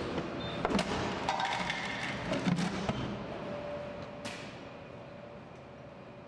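Vending machine mechanism clicking and knocking over a faint steady hum, then one sharp hit about four seconds in as a plastic water bottle strikes.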